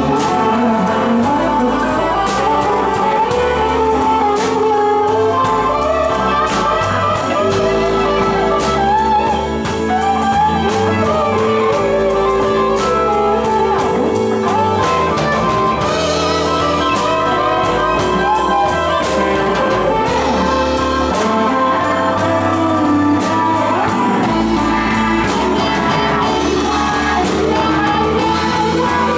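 Live blues band playing a slow blues: electric guitar over keyboard, with drums keeping a steady beat.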